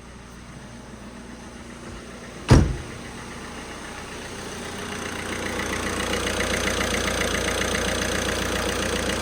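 Car engine idling steadily, just started after a timing belt and water pump change and running really smooth. A single sharp knock comes about two and a half seconds in, and the engine grows louder about halfway through.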